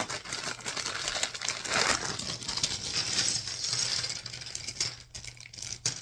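A plastic bag of Lego pieces crinkling as it is handled and emptied, with small hard plastic bricks clattering and clicking. The crinkling dies down about five seconds in, leaving a few scattered clicks.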